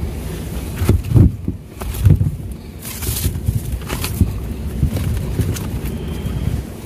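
Fruit and vegetables knocking together and shifting in a plastic bin as a gloved hand rummages through the heap. Irregular dull knocks with scattered clicks, and a brief rustle about three seconds in.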